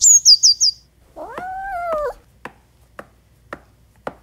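A quick run of high, falling chirps, then a cat's meow of about a second that rises and falls in pitch. After it come four soft clicks about half a second apart.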